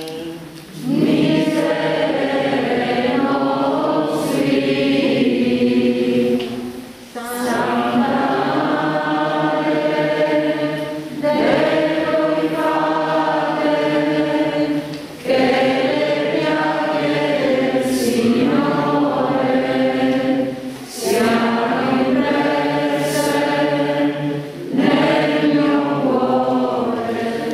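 A group of voices singing a slow hymn together, in phrases of a few seconds with short breaths between them.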